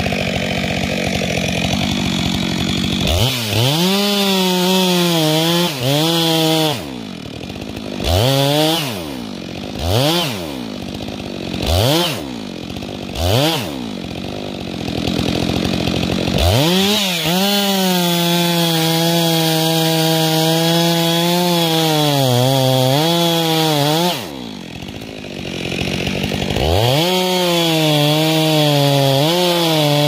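Two-stroke Stihl chainsaw cutting the face notch into a spruce trunk, its engine running at high revs under load. About a third of the way in it is throttled up and down in several short revs between cuts. Near the three-quarter mark it drops briefly to idle, then revs up again to cut.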